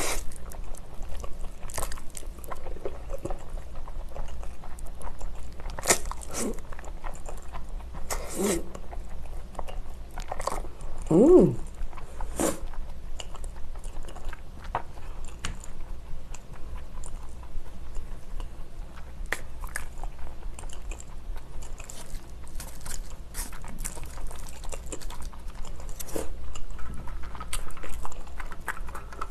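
Close-miked chewing of spicy noodles topped with crunchy seasoned cucumber, with irregular wet mouth smacks and crunches. A short vocal sound comes about 11 seconds in.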